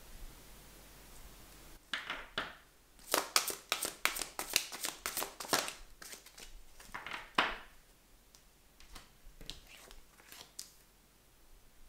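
A deck of cards shuffled by hand: a quick run of crisp card flicks and riffles starting about two seconds in and lasting some six seconds, then a few lighter taps and slides as a card is drawn and laid on the table.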